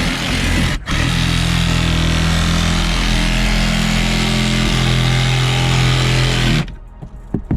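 Power windshield cut-out tool running steadily as it cuts through the soft urethane adhesive holding the windshield, with a brief break about a second in. It stops suddenly near the end, followed by a couple of light knocks.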